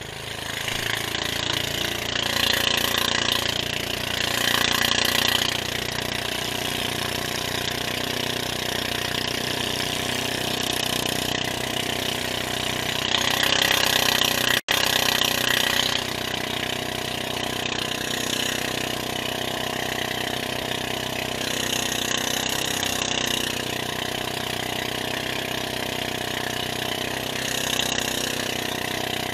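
Small engine of a motorized outrigger fishing boat (banca) running steadily under way, with water hissing and splashing along the hull and outrigger floats.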